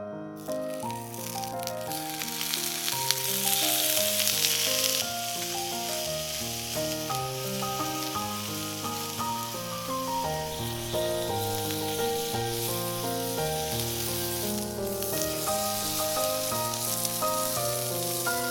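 Food frying and sizzling in a cast-iron skillet. The sizzle starts about half a second in, is loudest for a couple of seconds around the 3–5 s mark, then goes on steadily. Background piano music plays underneath.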